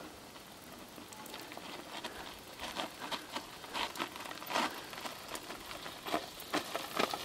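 Mountain bike rolling down a dry, crusted clay track, its tyres crackling and crunching over the grit in an irregular patter of clicks that grows louder as the bike comes closer.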